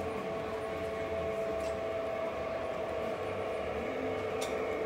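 Lionel O-scale model trains running on the layout: a steady whine over a low rumble from the track, with a single sharp click near the end.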